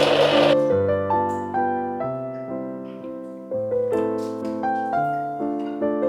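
Background piano music, single notes and chords played at a gentle, unhurried pace. A loud rushing noise cuts off about half a second in.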